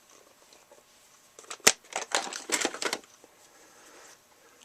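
Clicks and rattles of small screwdriver bits being handled and picked out of a bit set, with one sharp click about a second and a half in and a short run of lighter clicks after it.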